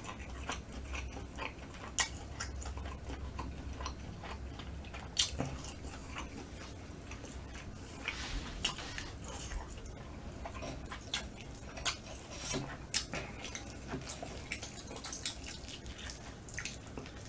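A person chewing smoked chicken close to the microphone: wet mouth clicks and smacks scattered through. Near the end, the smoked meat is pulled apart by hand.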